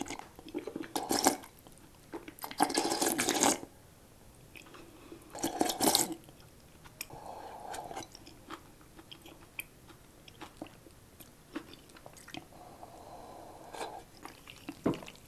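Ramen broth slurped from a bowl: three loud slurps, then softer swallowing and small wet mouth clicks.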